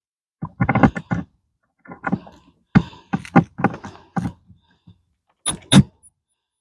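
Irregular knocks and clunks from tools and wood being handled, in short clusters with pauses between.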